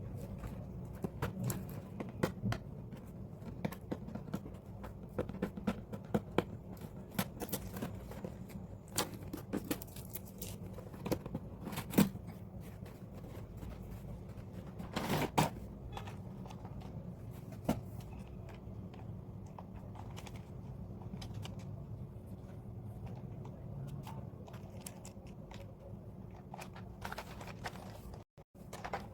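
Toy packaging being handled and opened by hand: irregular crinkling, tearing and clicking of plastic and cardboard, with a few sharper clicks and a louder crackle about halfway through.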